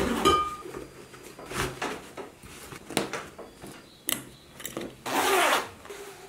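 Clothing and riding gear being handled close up: jacket and canvas bag fabric rustling, a zip pulled, and metal clasps and buckles clicking, in a series of short separate bursts. One sharp click comes about three seconds in, and the longest rustle, about half a second, about five seconds in.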